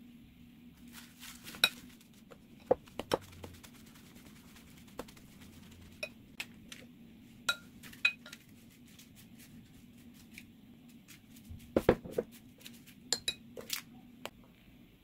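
A spoon knocking and scraping against a ceramic bowl while lettuce leaves are tossed and scooped out, an irregular series of sharp clinks and taps. There is a heavier cluster of knocks about twelve seconds in.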